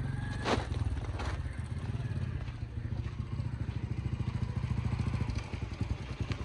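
A small engine running steadily in the background, a low pulsing hum that fades about five and a half seconds in, with a couple of short clicks near the start.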